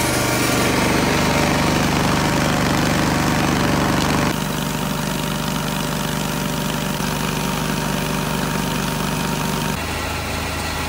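Engine running steadily at constant speed while a grain auger loads canola into a truck trailer, with a rush of grain flow mixed in. The sound shifts abruptly about four seconds in and again near the end.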